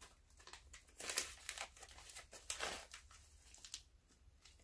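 Faint crinkling of a resealable plastic jerky pouch being handled, in a few short rustles: about a second in, about halfway through and once more shortly after.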